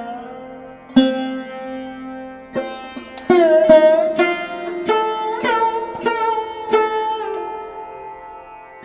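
Background music: a plucked string instrument playing a slow melody of separate notes, several of them bending in pitch after they are struck.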